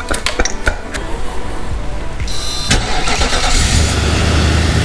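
A few handling clicks, then a vehicle engine starting about two and a half seconds in and running with a steady low rumble.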